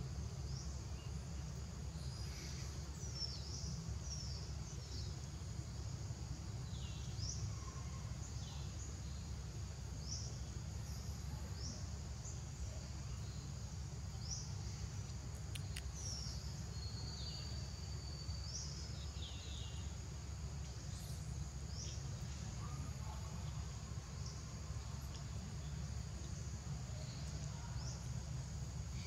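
Outdoor ambience: a steady insect drone with scattered short, high bird chirps that drop in pitch, over a low steady rumble.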